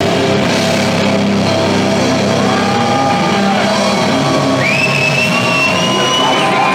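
A live rock band playing loud on electric guitars and a drum kit. Past the middle a high, slightly wavering note comes in and holds for nearly two seconds.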